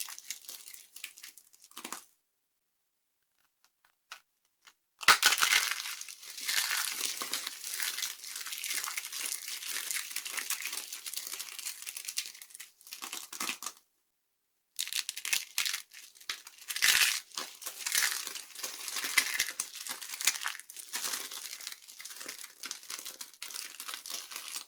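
Dry soap being crushed and crumbled: dense crackling and crunching, broken by two dead-silent gaps, one after about two seconds that lasts about three seconds and a shorter one near the middle.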